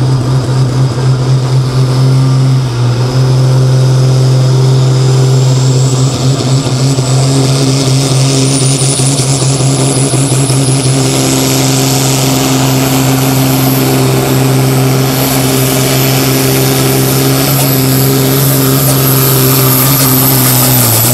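Super Sport class pulling tractor's turbocharged diesel engine held at steady revs while a high turbo whine climbs in pitch over several seconds and then holds: boost pressure building before the launch. Near the end the engine note drops.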